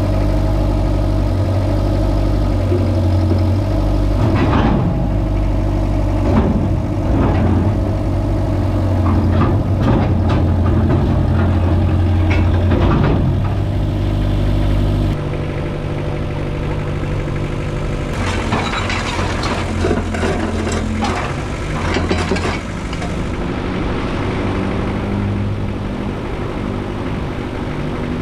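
Engine of a small old tracked excavator running steadily as the machine moves, with clanks and scrapes over it; about halfway through the engine note drops and runs quieter.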